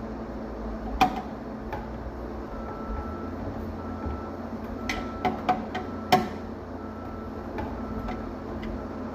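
Scattered sharp clicks and knocks of hard objects being handled, the loudest about a second in and about six seconds in, over a steady low hum.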